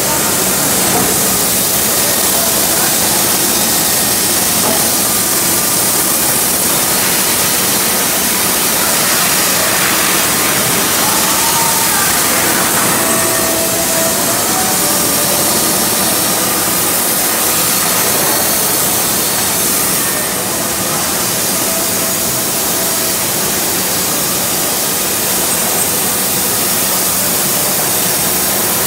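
Sawmill machinery running: a steady, loud, noisy din from the saws and dust collection, with a constant low hum underneath.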